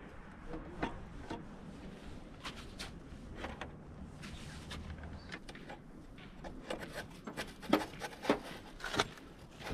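Scattered, irregular knocks and clicks over a low background hiss, with three louder knocks in the last two seconds.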